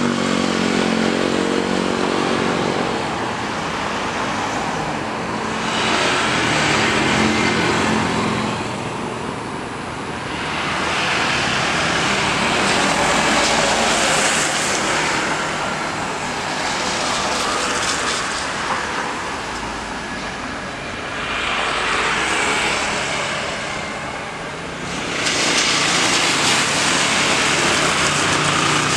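Airbus A320neo's CFM LEAP-1A jet engines at takeoff power as it accelerates down the runway. The sound is a broad, continuous rushing noise that swells and fades several times, with a low pitched hum in the first few seconds.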